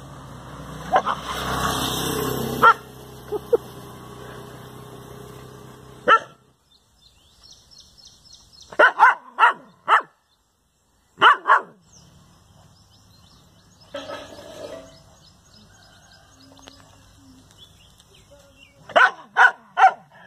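A dog barking in short sharp bursts: a single bark, then a run of three, a pair, and another run of three near the end. A noisy rush fills the first couple of seconds.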